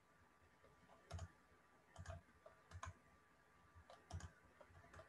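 Faint computer mouse clicks, about half a dozen, single and in quick pairs, roughly a second apart, over quiet room tone.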